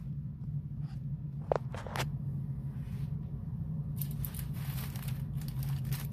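Handling noise: a couple of light clicks and a brief rustle over a steady low hum.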